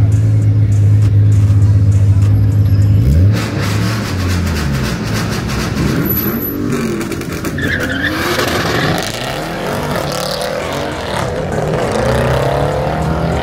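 Car engine held at steady high revs for about three seconds, then dropping off, followed by engines revving up and down several times.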